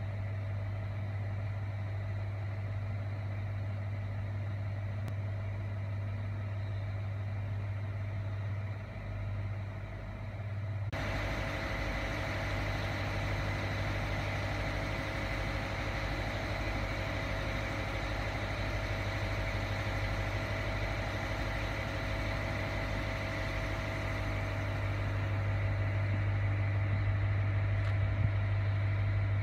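Diesel-electric freight locomotive running with a steady low engine hum. About eleven seconds in, a louder rushing mechanical noise with a faint steady whine sets in suddenly and swells a little near the end.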